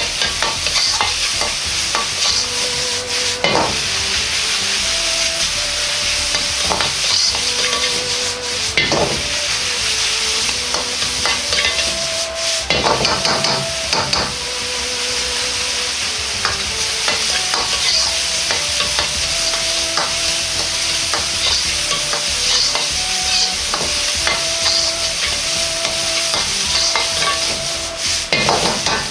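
Metal ladle stirring and scraping chopped vegetables around a Chinese wok over a gas flame, with a steady sizzle of frying in oil and frequent light clicks where the ladle strikes the wok. It is a slow, sustained stir-fry that softens the aromatics before the meat goes in.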